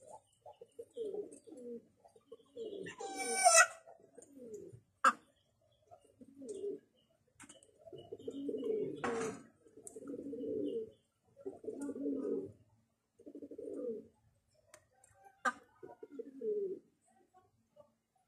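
Hen giving repeated low, throaty calls in short phrases of about a second each, with one louder, higher squawk about three seconds in and a couple of sharp clicks. The sounds come from a hen straining to lay an egg.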